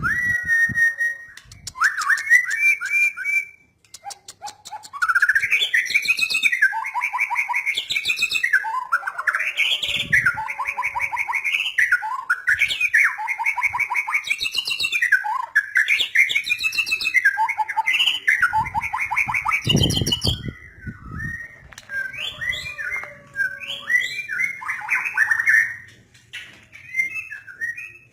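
White-rumped shama (murai batu) singing a long, varied song of clear whistles and fast rattling trills, pausing briefly about four seconds in and again near the end. A couple of dull low thumps sound under the song partway through.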